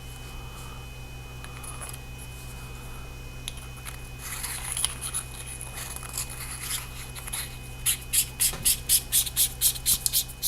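A small flashlight's threaded parts being screwed back together by hand: light scraping and rubbing, turning near the end into a quick, even run of short rasps, about five a second. A low steady hum lies underneath.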